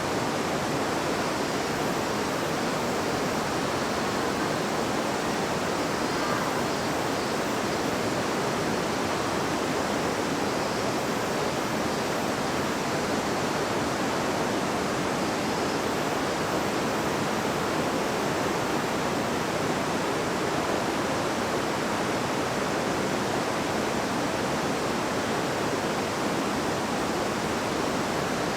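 River water babbling and rushing over rocks, a steady, unbroken rush of flowing water.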